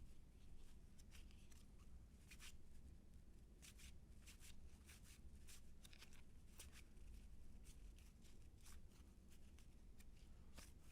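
Faint swishes and flicks of cardboard baseball cards being slid off one another and flipped through a pack, irregular, about one or two a second.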